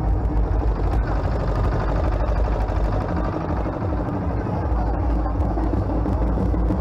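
Loud crowd din of many voices, with the engine of a truck running close by under it as a steady low rumble.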